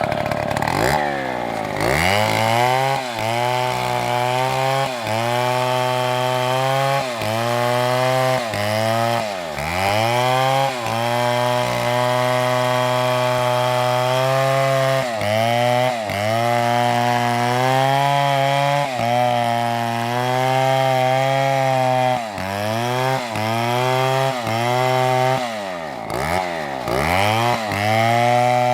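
Two-stroke chainsaw running at high revs while cutting wood. Its engine note dips sharply and recovers every second or two as the chain bogs under load in the cut.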